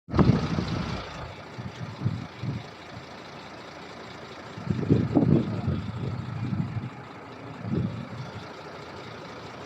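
An engine running steadily, with irregular low rumbling surges, the strongest at the start and about five seconds in.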